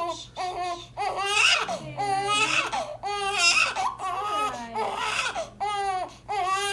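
Newborn baby crying: a run of high, wavering wails, about one a second.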